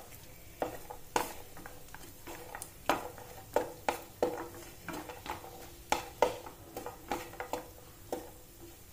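Wooden spatula stirring cashew pieces frying in ghee in a nonstick pan: irregular scrapes and taps of the spatula on the pan over a faint sizzle.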